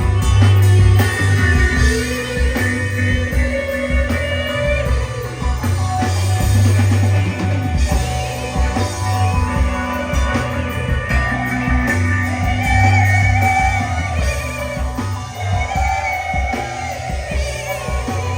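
Rock band playing, guitars over bass and drums, with a melody line sliding up and down over the mix.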